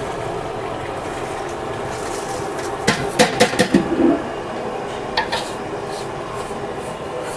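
Large aluminium cooking vessels knocking and clanking, a quick run of sharp clanks about three to four seconds in and two more just after five seconds, as washed rice is tipped from one vessel into the big cooking pot. Under it runs a steady kitchen background noise.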